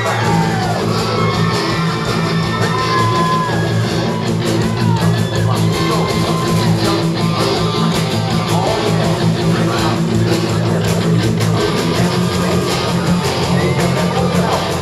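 Rock band playing live: electric guitars, bass and drums, with the low bass notes coming in right at the start, in a large hall.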